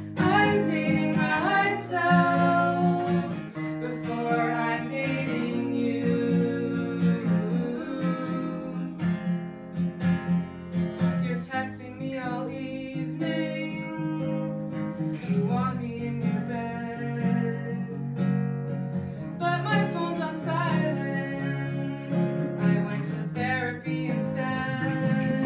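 Acoustic guitar strummed with women's voices singing a melody over it.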